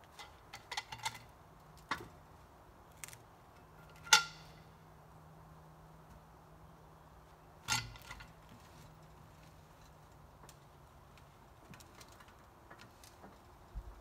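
Scattered metallic clinks and knocks of hardware being handled, with one sharp ringing metal strike about four seconds in and a second knock near eight seconds, over a faint steady low hum.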